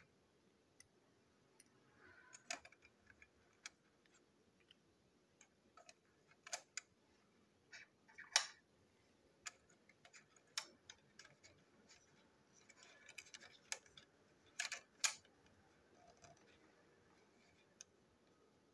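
Small plastic clicks and taps as a Plarail toy wagon's wheelsets and body are fitted onto its black chassis by hand, with a soft rustle now and then. The loudest clicks come about 8 and 15 seconds in.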